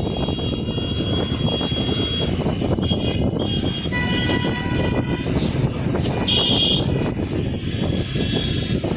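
Motor vehicle traffic running steadily, with vehicle horns sounding: one held horn note about four seconds in and a shorter one around six and a half seconds.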